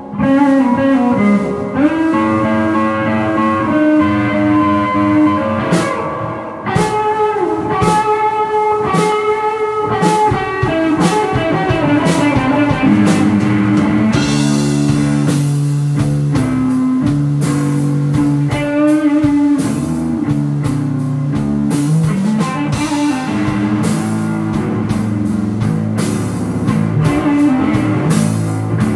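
Background music: guitar-led rock with a drum kit, the beat filling out about halfway through.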